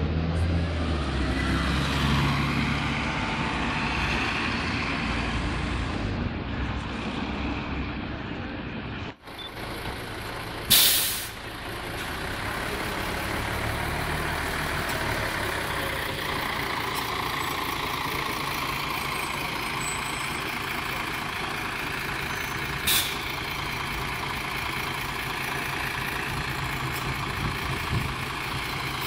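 Diesel engine of a Mercedes-Benz Citaro city bus idling steadily at a stop. About eleven seconds in comes a loud hiss of released compressed air that dies away quickly, and a shorter air hiss follows later.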